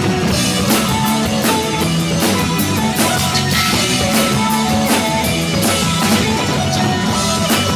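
Live rock band playing at full volume with drum kit, electric guitar, bass and keyboards, as the drums strike steadily under held keyboard notes. The recording distorts, the sound clipping.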